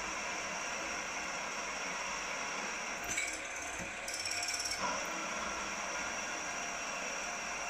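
Drilling machine running steadily as a long twist drill bores the exhaust passage down through a model traction engine's cylinder block, with harsher cutting bursts a little past three seconds and again from about four to five seconds.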